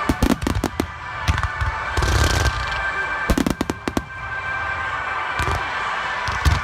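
Aerial fireworks shells launching and bursting at close range: clusters of sharp bangs and deep booms, with a quick run of reports about three and a half seconds in.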